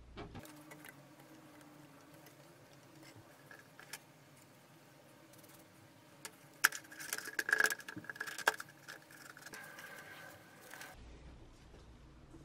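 A brush dabs and scrapes paint-stripper gel onto a metal lamp shade in a plastic tray. The scraping is faint, with a cluster of louder sharp clicks and taps about seven to eight and a half seconds in.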